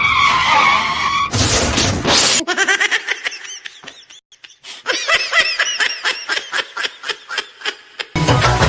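A couple of seconds of noisy rushing sound, then laughter: a long run of quick, short laughs with a brief pause partway through.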